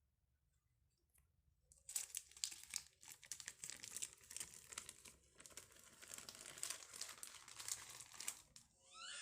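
Paper or plastic crinkling and rustling as it is handled, starting about two seconds in and going on for several seconds. A short rising chirp near the end.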